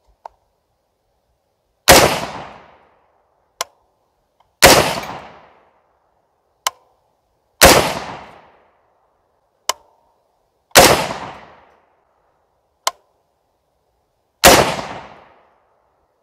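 Five single rifle shots from a 24-inch-barrel .223 AR-style bench rifle, about three seconds apart, each with a short decaying tail. A much fainter sharp click comes about two seconds after each of the first four shots.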